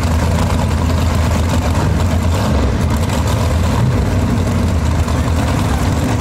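Drag car's engine idling loudly and steadily, a constant low rumble with no revving.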